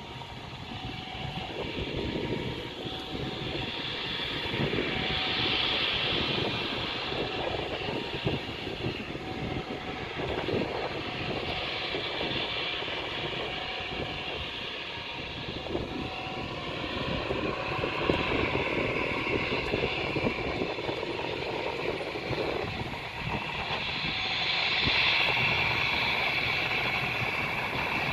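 Airliner engines running at take-off power, a steady roar whose upper hiss swells and eases several times and is strongest near the end, under heavy wind buffeting on the microphone.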